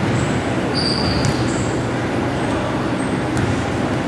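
Steady din of an indoor basketball gym during a game, with a few short high squeaks, the loudest about a second in, and a couple of sharp taps.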